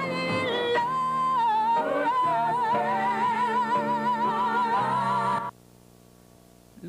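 Music with a singer holding a long high note with a wide vibrato over steady accompaniment, in an operatic style; the music cuts off abruptly about five and a half seconds in.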